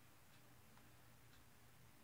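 Near silence: room tone with a steady low hum and faint clicks about once a second.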